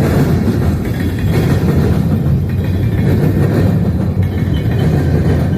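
Freight train rolling past, a steady low rumble with wind buffeting the microphone.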